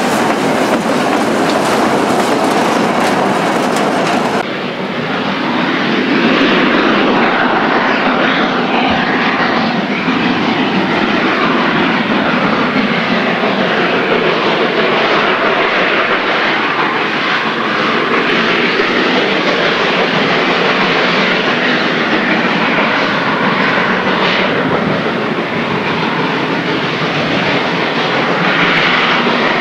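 Railway boxcars rolling past close by for the first few seconds. Then a steady roar from a steam locomotive working hard up a steep mountain grade, pouring black smoke.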